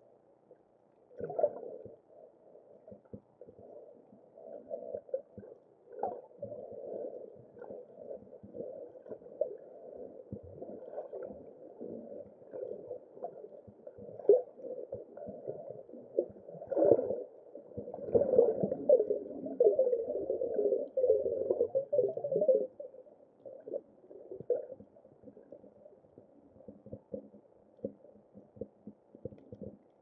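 Muffled water noise picked up by an underwater camera: irregular bubbling and sloshing with a few sharp knocks, busiest for a few seconds just past the middle.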